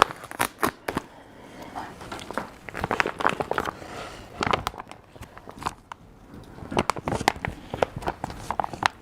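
Irregular clicks, knocks and rustling as a bowl and food are handled.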